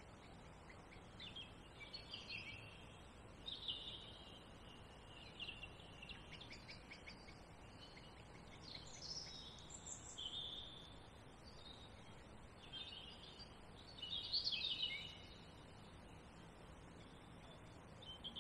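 Songbirds singing faintly in short, warbling phrases with pauses between, the loudest burst about fourteen seconds in, over a faint steady background hiss.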